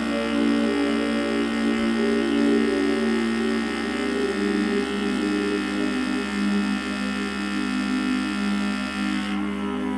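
Background music of slow, sustained droning tones that shift gently in pitch; the brighter upper part drops away about nine seconds in.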